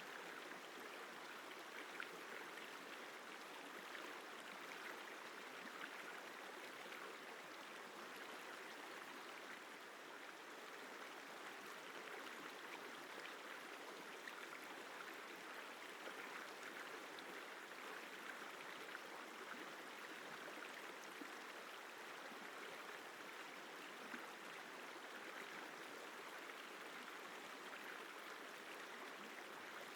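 The Isar River flowing: a steady, faint rush of running water.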